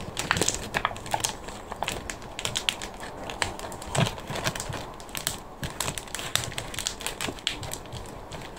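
Thin plastic seed-module tray crackling and clicking irregularly as gloved fingers flex and squeeze its cells to loosen the compost plugs, with soil rustling.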